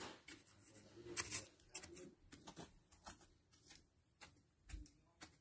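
Near silence with faint, scattered soft taps and scrapes of a toy horse figurine being moved by hand over sand.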